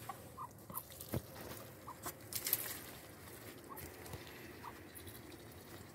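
Muscovy duck pecking feed from a steel bowl, her bill knocking and rattling against the metal, with a sharp knock about a second in and a louder clatter around two seconds in. A few faint short chirps are scattered between.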